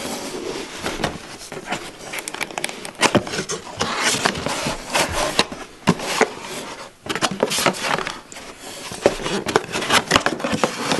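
Cardboard box being opened by hand: flaps scraping and rustling against each other, with irregular sharp clicks and taps.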